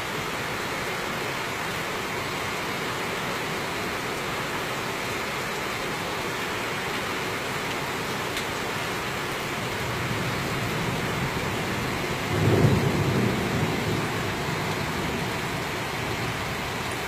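Heavy rain falling steadily on the street and trees, with a low roll of thunder that builds about ten seconds in, peaks shortly after and fades away.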